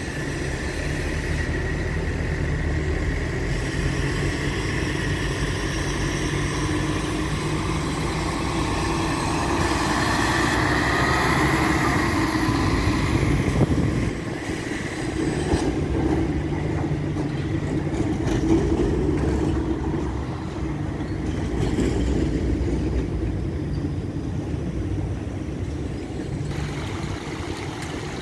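Street traffic with a city bus and an articulated tram passing. A whine rises and falls about ten to thirteen seconds in as the tram goes by, over a steady low rumble of engines.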